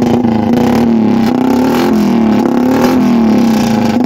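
Royal Enfield Bullet's single-cylinder engine running with its exhaust blown through the metal trumpet of a PA horn loudspeaker tied to the silencer. The result is a really loud, steady drone with a strong tone whose pitch rises and falls slightly.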